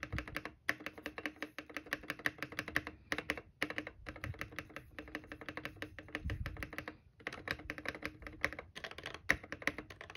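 Fast typing on a mechanical keyboard with its stock keycaps: a dense run of keystroke clacks, broken by a few short pauses, over a faint steady hum.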